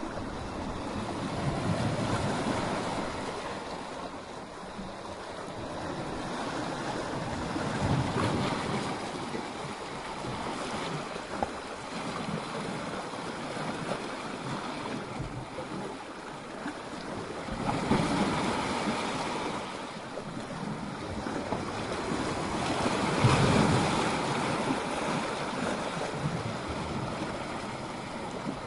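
Sea waves breaking and churning against rocks: a continuous rush of surf that swells into louder crashes four times.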